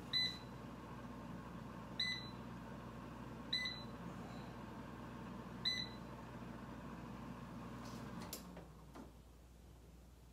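Power XL Vortex Pro air fryer's control panel beeping four times, a second or two apart, as its touch buttons are pressed, over the steady hum of the oven's fan running. The hum stops about eight and a half seconds in as the oven is switched off.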